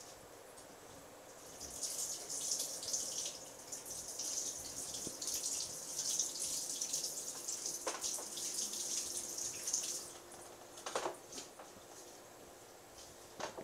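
Aquarium water fizzing with fine bubbles, a high hiss that comes up about two seconds in and falls away about ten seconds in. A few light clicks follow near the end.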